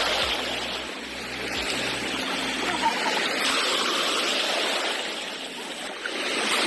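Sea water washing and splashing, swelling and easing off every few seconds.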